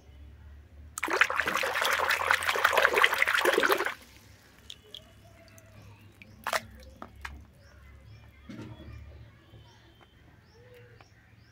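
Water splashing and sloshing for about three seconds as a plastic toy tiger is swished in a basin of water, followed by a few faint drips and small knocks.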